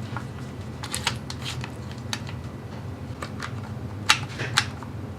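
Scattered light clicks and knocks of hands handling wood and small tools on a workbench, with two sharper knocks about four and four and a half seconds in, over a steady low hum.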